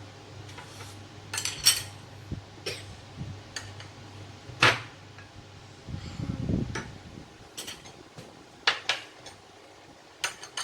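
Eating utensils clinking and tapping against bowls and plates at the dinner table: scattered, irregular clinks, the loudest a little before halfway and a quick pair about three quarters of the way through.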